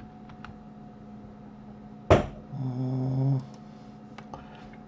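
A few keyboard and mouse clicks. About two seconds in comes a man's sharp throat-clearing sound, the loudest thing here, followed by a short steady hum from his voice lasting just under a second. A faint low electrical hum runs throughout.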